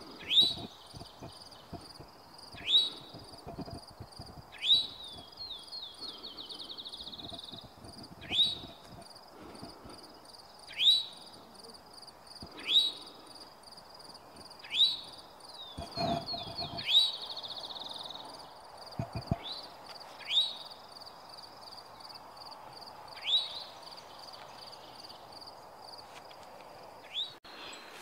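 Eastern towhee singing: a loud, sharp high note repeated about every two seconds, twice running on into a fast trill, over a faint steady high hum.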